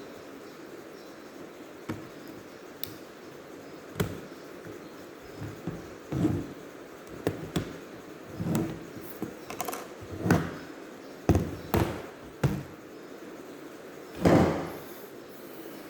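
Scattered clicks, taps and short dull thumps of a laptop and tools being handled during disassembly, with the loudest thump near the end.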